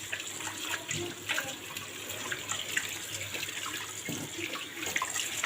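Kitchen tap running into a sink while dishes are washed by hand, with a few light clinks of dishes against each other.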